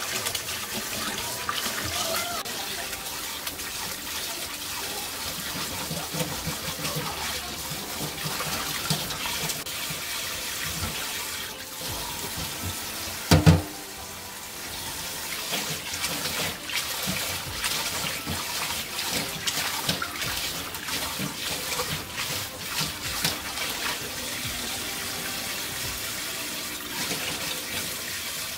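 Tap water running into a plastic bowl of greens in a stainless steel sink, with splashing and swishing as the greens are washed by hand. A single loud knock about halfway through.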